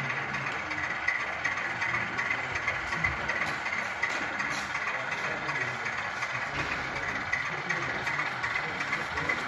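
Sound-fitted model BR Class 27 diesel locomotive playing a steady diesel engine idle through its on-board speaker.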